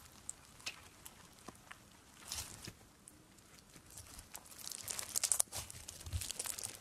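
Grainy, puffy slime being squeezed and stretched by hand, giving off crackles and crunchy pops; a cluster of crackles comes about two and a half seconds in, and the crackling gets denser and louder in the second half.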